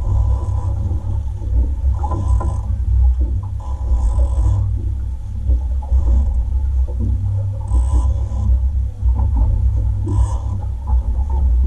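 Steady low rumble of a fishing boat at sea on a deck-mounted camera, with short scraping, clattering noises of gear and fishing reels every couple of seconds.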